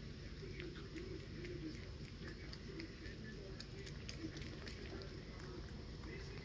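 Raccoon kit eating fig newton crumbs: a steady run of small chewing and smacking clicks, with short, low cooing notes repeating underneath.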